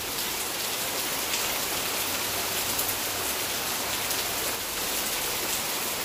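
Heavy rain falling steadily on garden plants and the water of a swimming pool: a continuous hiss with fine patter of drops.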